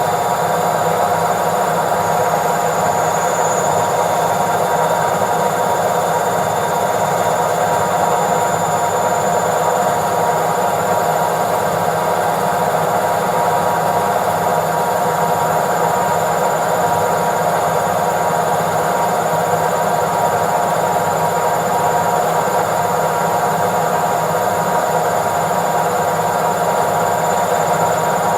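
Washing machine on its spin cycle, the drum turning at a steady high speed: an even whirring rumble with a steady whine that holds one pitch throughout.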